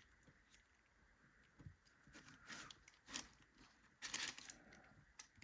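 Faint clicks and small scrapes of a lock's internal mechanism being worked loose and handled. A few scattered ticks, with a slightly louder cluster about four seconds in.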